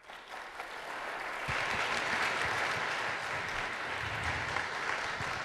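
Audience applauding, building over the first second or so and then holding steady.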